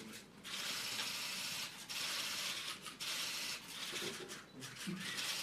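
Paper rustling as thick paper case-file folders are handled and their pages leafed. It comes in scratchy stretches of about a second each with short breaks.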